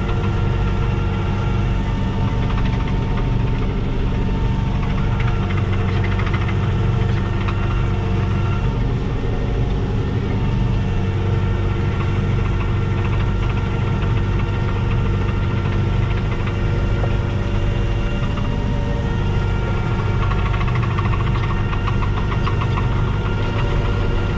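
Fendt Farmer 410 Vario tractor's four-cylinder diesel engine running steadily at constant speed. A few thin, higher whines come and go over the engine note.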